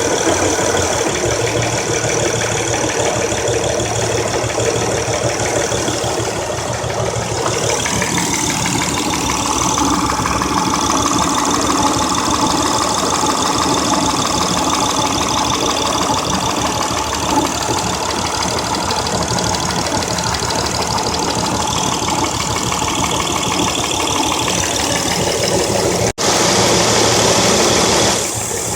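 2003 Honda Accord's 3.0L V6 running with a misfire across several cylinders (codes P0300 and P0303–P0306), which turned out to come from a new ignition coil that was dead on arrival. The sound breaks off for an instant about 26 seconds in and runs louder for a couple of seconds after.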